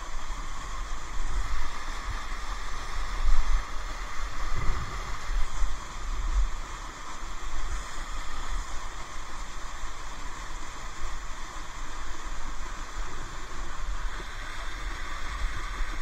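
Steady rush of falling water from a waterfall, with an uneven low rumble underneath.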